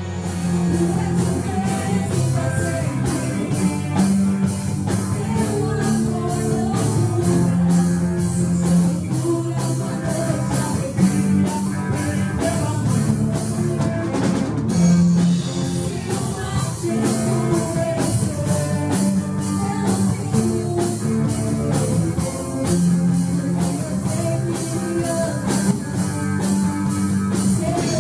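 Live gospel band playing an upbeat rock-style song, with drum kit keeping a steady beat about twice a second under bass and guitar.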